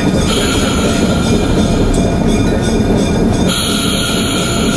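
Steady rumble of a moving diesel locomotive heard from its cab, an ALCO RSD-1, with engine and wheel-on-rail noise as the train rolls slowly along the track. A high hiss swells twice, about a third of a second in and again near the end.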